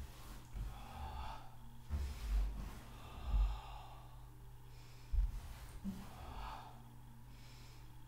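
A woman breathing audibly and slowly in and out during a seated stretch, several long breaths, with a few soft low thuds from body movement on the mat.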